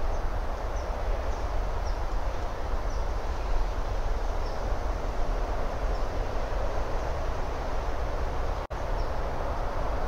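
Steady outdoor ambience from the nest-cam microphone: a constant rushing noise with a deep rumble underneath, and faint, high, short chirps from a small bird every second or so. The audio drops out for an instant near the end.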